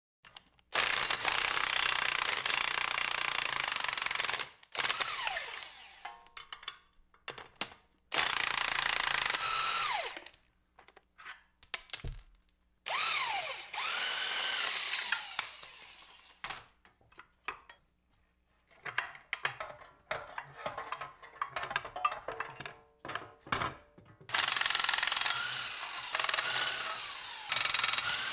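Cordless impact wrench hammering in about four bursts of a few seconds each, its motor whine rising and falling as nuts and bolts are run off. Short clanks and knocks of metal parts sound between the bursts.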